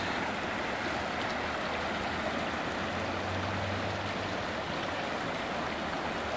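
Fast, shallow mountain river rushing over rocks: a steady rush of whitewater.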